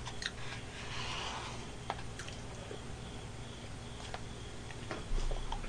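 Quiet eating from an ice cream cup: a few faint scattered clicks of a utensil against the cup, with soft chewing.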